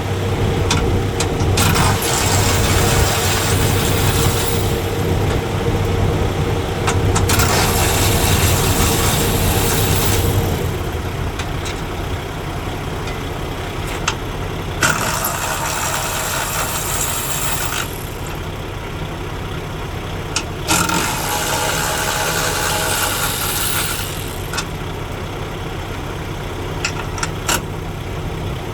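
An engine idling, with a steady low hum that is strongest for the first ten seconds. Over it come several stretches of hiss-like noise lasting about three seconds each, and a few sharp metallic clicks.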